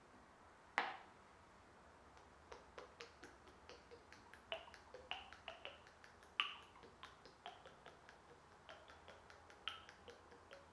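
Faint, irregular ticks and plinks of liquid paint stripper pouring and dripping from a metal can onto a painted wooden dresser top. The two loudest come about a second in and a little past the middle.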